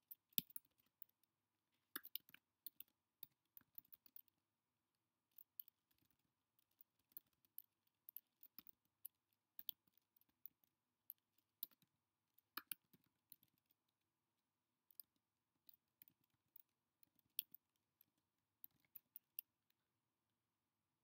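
Typing on a computer keyboard: faint, irregular keystroke clicks in quick runs as a sentence is written, with a short pause about two-thirds of the way through.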